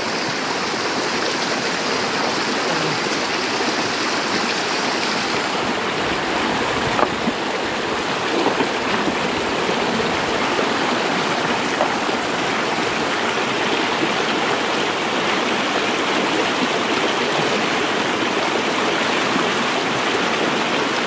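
Steady rush of river water flowing over rocks, with a few faint knocks now and then.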